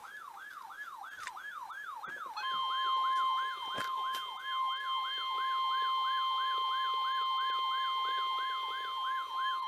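Weather-alert siren: a falling electronic sweep repeating about three times a second. About two and a half seconds in, the steady single-pitch warning alarm tone of a NOAA Weather Radio broadcast joins it, sounding before a flood warning is read.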